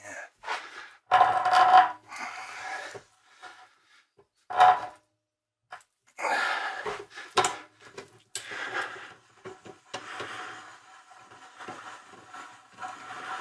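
Hand threading die in a die stock cutting a thread on a bronze rod clamped in a vise: irregular bursts of metal-on-metal scraping and creaking as the die is turned, becoming more continuous near the end.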